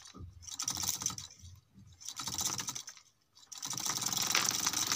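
Homemade mini thresher: a small DC motor spins a plastic-bottle drum while a grain stalk is held against it, giving a rapid clicking clatter as the drum beats the grain head. The clatter comes in short bursts with brief gaps for the first three seconds or so, then runs on without a break from a little before four seconds.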